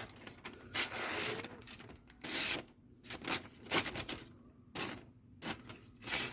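A freshly sharpened and stropped knife edge slicing through paper as a sharpness test: about six rasping cuts of varying length, the longest about a second.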